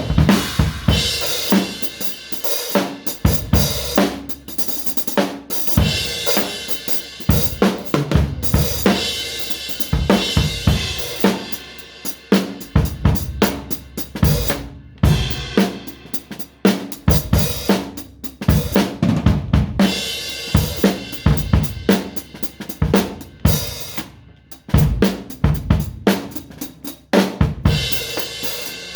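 A drum kit being played: quick, uneven runs of strikes on the drums with cymbals ringing over them.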